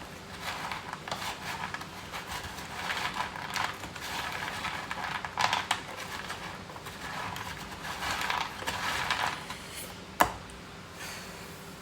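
Spoon scraping and stirring soft cat food in a dish, an uneven run of scrapes and small clicks, then one sharp click about ten seconds in.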